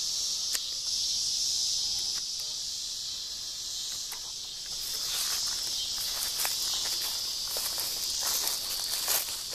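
Steady high-pitched chorus of insects. From about halfway through, footsteps crunch through dry grass and fallen leaves.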